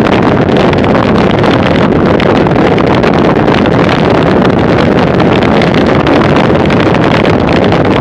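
Wind rushing steadily and loudly over a moving camera's microphone at about 40 km/h.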